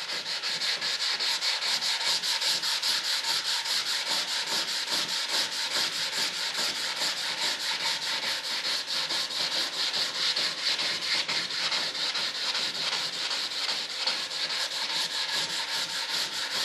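Sandpaper rubbed by hand over body filler on a model jet's intake duct, in fast, even back-and-forth strokes of about four or five a second.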